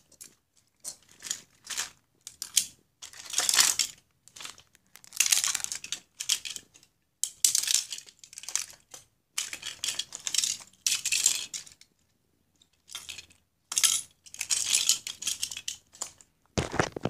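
Die-cast toy cars clinking and clattering against each other as a hand rummages through a pile of them, in irregular bursts with short pauses between.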